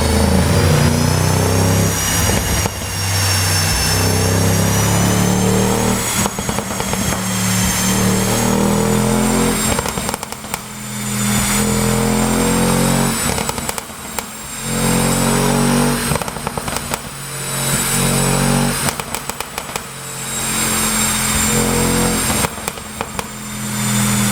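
Audi RS7's 4.0 TFSI twin-turbo V8 revved over and over, each rev falling away into a burst of exhaust crackles and pops on the overrun, the sound of a pop-and-crackle tune.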